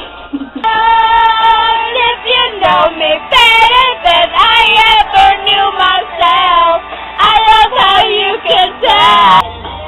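High-pitched singing voice with music, starting about half a second in and breaking off shortly before the end.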